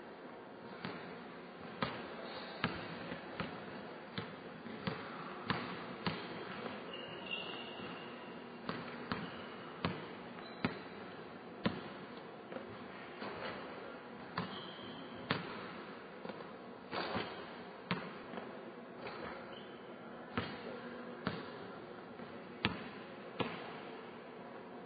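Basketball bouncing on a hardwood gym floor: irregular thuds about one or two a second as it is dribbled and drops after shots, with a couple of brief high squeaks.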